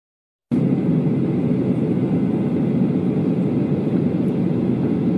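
Jet airliner cabin noise in flight: the steady, low rush of the turbofan engines and airflow heard from inside the cabin, beginning abruptly about half a second in.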